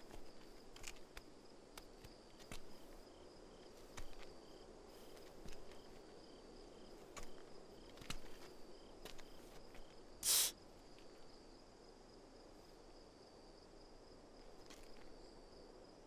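Crickets chirping steadily in a night ambience, with scattered faint clicks and scuffs. A short swish about ten seconds in is the loudest sound.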